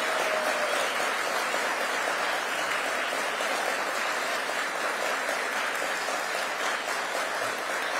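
Audience applauding steadily: many people clapping at once in a large hall.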